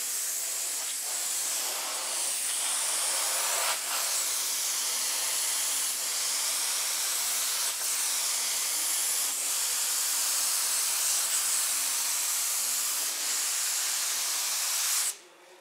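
Gravity-feed compressed-air spray gun hissing steadily as it sprays textured Raptor bed-liner coating at medium texture. It cuts off sharply about 15 seconds in.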